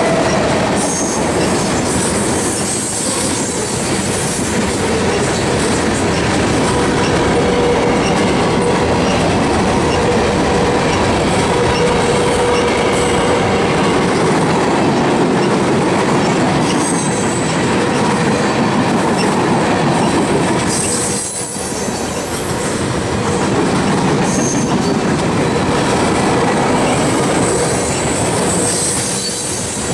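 Freight cars rolling past close by: a loud, steady rumble of steel wheels on the rails, with thin wheel squeal coming and going. The noise eases briefly about two-thirds of the way through.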